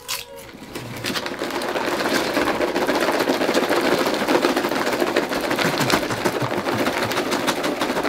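Bag of microwave popcorn being shaken and handled: a dense, steady crackle of paper rustling and popped kernels rattling, building up about a second in, as the kernels are coated with the flavoring.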